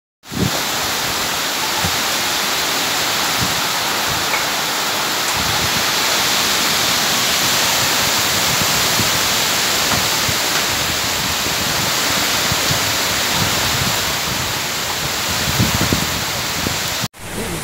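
Heavy rain pouring down: a steady, dense hiss of falling water. It breaks off abruptly near the end.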